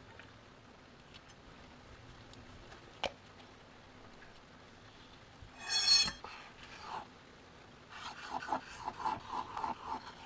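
A short, loud rasping burst a little past the middle: a hard cheese such as parmesan grated on a rasp grater. Near the end comes a quick run of softer knife strokes as raw ahi tuna is sliced and scored on a cutting board, and there is a single click about three seconds in.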